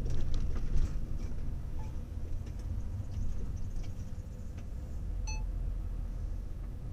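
Lorry's diesel engine and road noise heard inside the cab, a steady low rumble, with a few knocks and rattles in the first second. A short electronic beep sounds about five seconds in.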